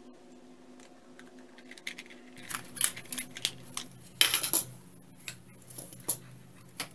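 Hard plastic clicks and clatter as the rear case of a Fluke 88V multimeter is pulled apart from the meter's body and set down. Quiet for the first couple of seconds, then a run of sharp clicks, the loudest cluster a little past the middle, with a few scattered clicks after.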